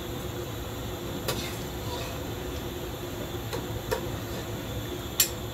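Metal slotted ladle clinking against a stainless saucepan while scooping boiled pig stomach pieces out into a bowl: a few light clinks, the sharpest near the end, over a steady background hum.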